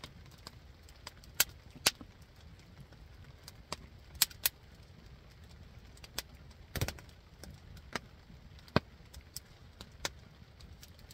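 Split-wood fire crackling, with irregular sharp pops and snaps over a low steady rumble, and one duller knock about two-thirds of the way through.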